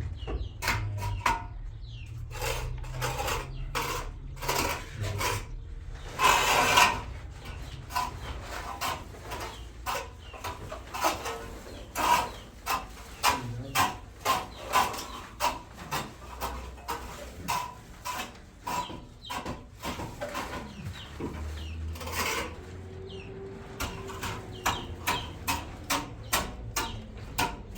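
A long run of short scraping and knocking strokes, several a second, as of hand work on a hard surface.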